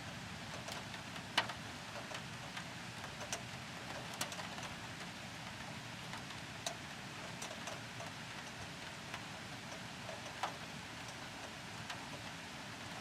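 Steady rain hiss with scattered louder drops tapping close by, a few sharp ticks standing out above the patter.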